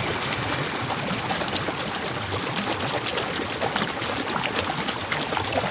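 Waterfall rushing and splashing: a steady, dense hiss of falling water.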